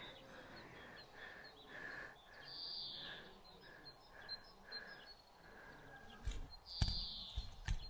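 Quiet outdoor ambience with a bird chirping over and over, about two short chirps a second, fading out after about five seconds; a few soft low thumps come near the end.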